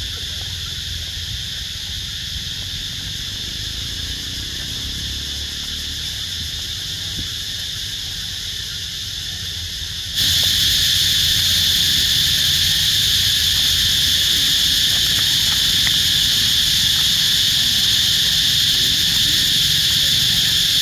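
Insects droning in a steady, high-pitched chorus that jumps louder about halfway through, over a low rumble.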